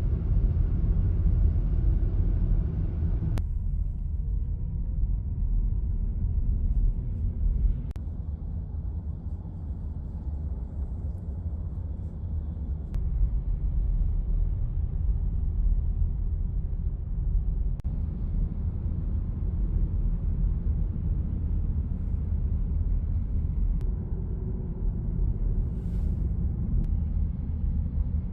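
Steady low rumble of road and engine noise heard inside a moving car, with a few sudden shifts in the noise.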